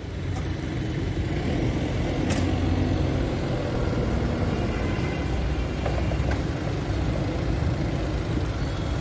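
Diesel forklift engine running steadily, with a short click about two seconds in.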